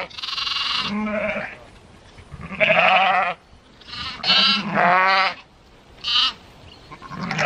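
Sheep and lambs bleating: about half a dozen quavering calls one after another, some higher-pitched than others.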